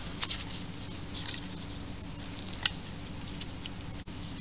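Light handling noises from small lathe parts being worked on: a few faint clicks and taps over a steady low hum.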